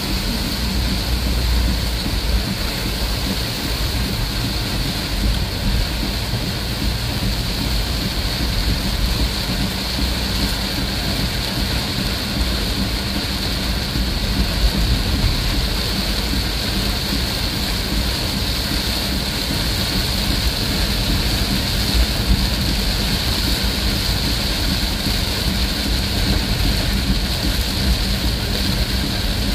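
Heavy rain falling on a moving vehicle's roof and windscreen, heard from inside the cabin as a steady hiss over a low, even engine and tyre rumble.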